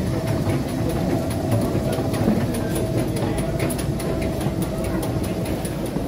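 Steady low rumble and hum of a busy metro station, with a faint held tone and scattered footstep clicks on the hard floor through the middle seconds.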